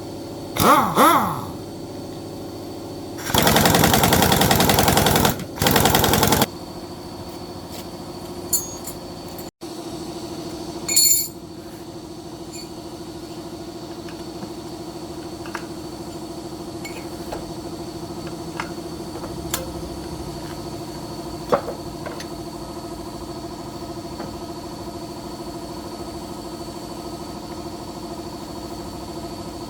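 Two bursts of a rapid, hammering power tool, about two seconds and then under a second long, like a pneumatic impact wrench. After them an engine hums steadily for the rest of the stretch, with a few light clicks and one short knock.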